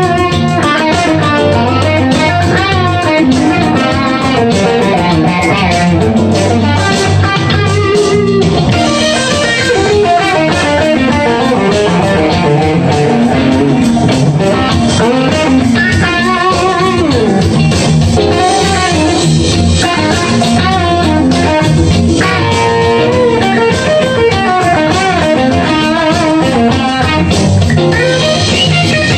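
Electric guitar playing improvised rock-funk lead lines: a 1977 Aria Pro II LS-900 with DiMarzio Super Distortion humbuckers, through a modded Bugera V55 tube amp and a Marshall 2x12 cabinet with Celestion Vintage 30 speakers.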